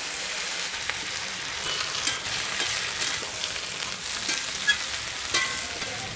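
Mixed vegetables and greens sizzling in mustard oil in a metal kadai while a metal spatula stirs them, with a few sharp scrapes and clinks of the spatula against the pan.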